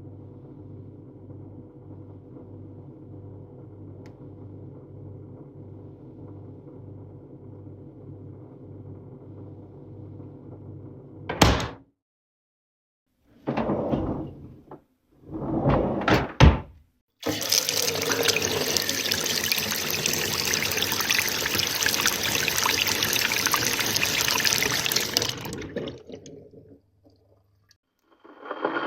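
A run of kitchen sounds. First a steady appliance hum with a pulsing low tone, then a sharp click about eleven seconds in and two short rustling, clattering bursts. After that comes a long hiss like water running from a tap, which fades out near the end.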